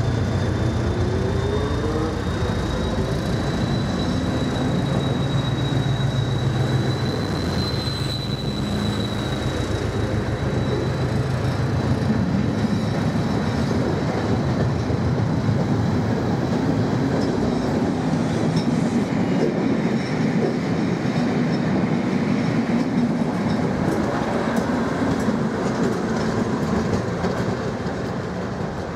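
Class 73 electro-diesel locomotives hauling a test train past at close range: the lead loco's diesel engine running steadily, then the coaches rolling by with wheels clattering over the rail joints. A thin high whine sounds over the first two-thirds and fades out.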